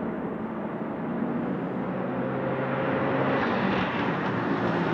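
Bentley Continental GT3 race car's 4.0-litre twin-turbo V8 running as the car approaches, the engine note growing louder over the last couple of seconds.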